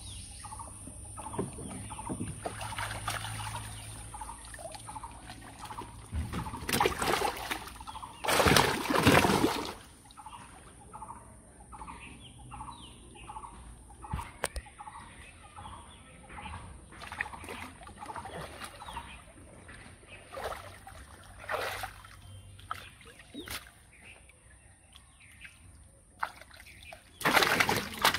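Water splashing in loud bursts, about seven to ten seconds in and again near the end, where caught fish thrash in a tarp-lined tank of water. Between the splashes, a series of short repeated animal calls.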